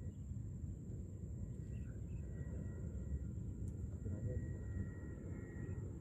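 Steady low outdoor rumble with a thin, constant high-pitched whine over it and faint far-off voices.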